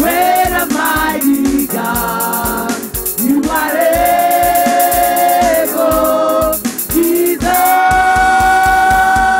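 Women's gospel choir singing in harmony into microphones over a band with a steady drum beat, holding long notes about four seconds in and again near the end.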